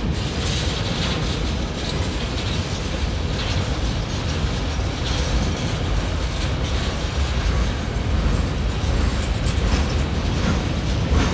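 Cars of a long CSX mixed freight train rolling past: a steady rumble of steel wheels on the rails, with now and then a clack as the wheels pass rail joints.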